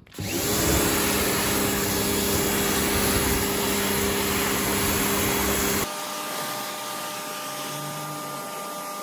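Greenworks electric pressure washer running: its motor and pump hum steadily under the loud hiss of water spraying from a variable nozzle onto a car. About six seconds in the sound drops to a quieter, higher-pitched hum.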